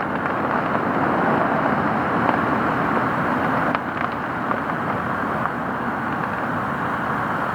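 Strong storm wind blowing steadily through trees, with a few faint ticks of rain.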